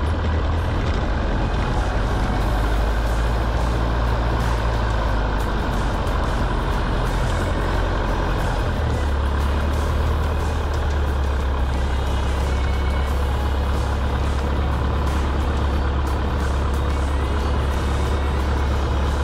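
Grumman AA-5A's single piston engine idling, heard from inside the small cabin: a steady low drone whose note drops slightly about nine seconds in.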